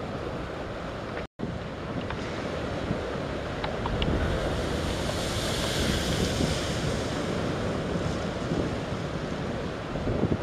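Wind buffeting the microphone over waves washing against a rocky breakwater, with a hiss of surf swelling for a few seconds in the middle. The sound cuts out for an instant about a second in.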